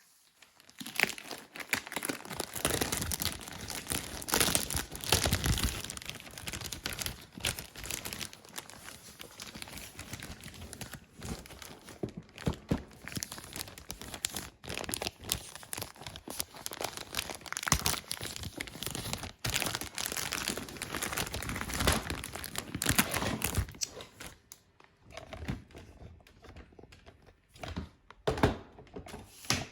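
Product packaging being handled and opened: wrapping crinkling and tearing, with irregular rustles and sharp clicks. The handling grows sparser near the end, leaving separate clicks.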